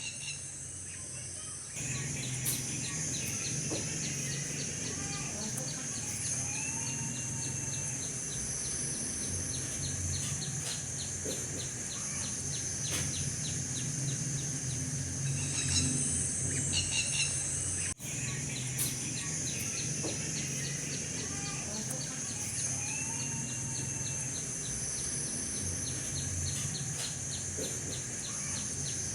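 Outdoor nature ambience: steady high insect buzzing with a rapid, even insect ticking, a few short bird chirps, and a low steady hum underneath.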